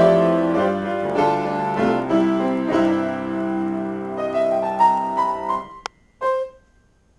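Solo piano improvisation: chords and a melody ring on and fade out about five and a half seconds in, then two short notes are struck near the end to close the piece.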